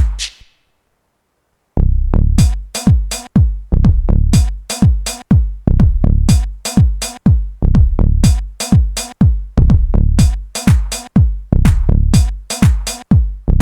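Tribal house music with a deep, booming drum-machine kick and bright percussion over a steady beat. It drops out to silence about half a second in and comes back in with the full beat about a second later.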